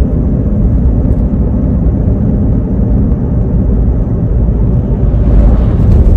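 Loud, steady low rumbling noise, like a moving vehicle heard from inside, swelling briefly near the end.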